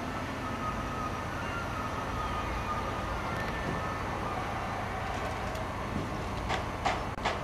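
Train noise as a DB Class 628 diesel railcar runs over points and crossings: a steady rumble with a faint high whine, then several sharp clacks near the end.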